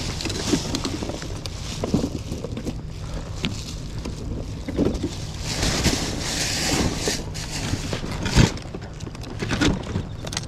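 Strong wind buffeting the microphone with a constant low rumble and surges of hiss, and a sharper knock about eight seconds in.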